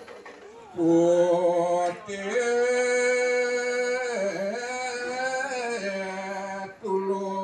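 A single voice chanting a slow Balinese ceremonial song in long held notes, each sustained for a second or two with small slides between them, with short breaks about two seconds in and near the end.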